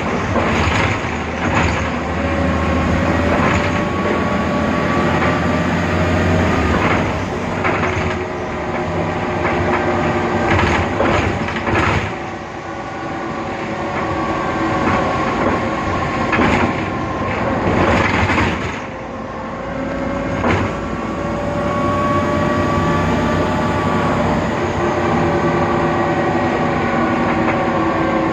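BredaMenariniBus Avancity Plus city bus with a Deutz diesel and ZF 6HP Ecomat automatic gearbox running under way. Its drivetrain gives several whines that slowly rise and fall over a low rumble, with scattered knocks and rattles throughout.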